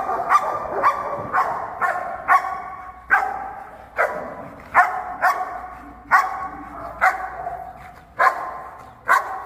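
A black shepherd-type protection dog guard-barking at a helper in a bite suit: about fourteen sharp, loud barks at an uneven pace, roughly one and a half a second, each followed by a short room echo.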